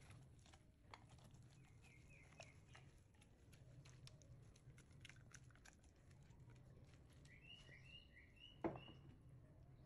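Near silence: faint soft clicks and taps from a wet chopped vegetable mixture being tipped out of a glass bowl, with one sharper knock near the end. Faint bird chirping twice in the background.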